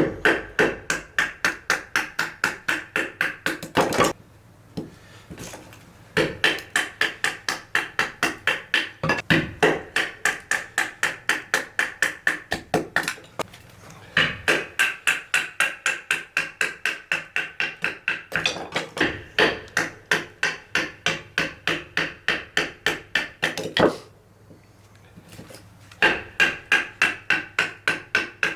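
Rapid, even hammering blows on firewood, about four a second, in runs with short pauses between them, each blow with a slight ringing note: wet wood being pounded and split down into small pieces for the fire.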